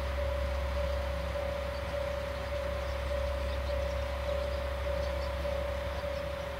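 Diesel railcar engine idling steadily with a low hum, with an electronic warning tone beeping evenly about one and a half to two times a second.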